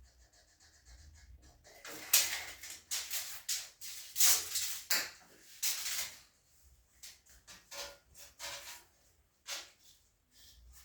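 Irregular knocks, clatters and scrapes of objects being handled, busiest and loudest from about two to six seconds in, then sparser.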